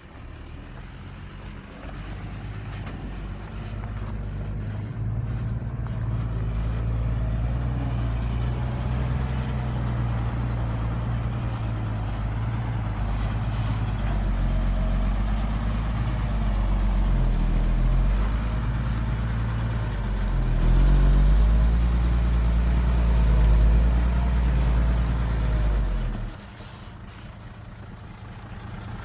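Heavy diesel engine of earthmoving machinery working under load, its note rising and falling as the revs change. It drops back sharply to a lower, quieter running level near the end.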